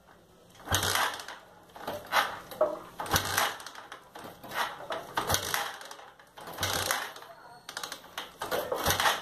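Sundown MAX 125 single-cylinder engine being kick-started over and over, about one kick a second, each stroke turning the engine over against compression without it catching: the engine will not fire after a top-end rebuild.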